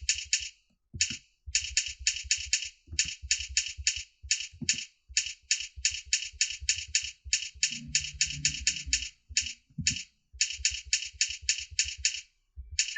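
Computer keyboard keys being typed quickly in runs of rapid clicks with short pauses between, as a typing drill of J, F and space keys is worked through.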